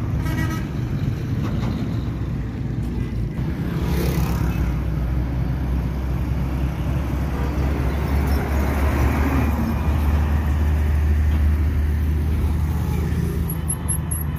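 A heavy truck's engine running as it drives past close by: a low, steady rumble over road traffic noise, growing louder and peaking about two-thirds of the way through.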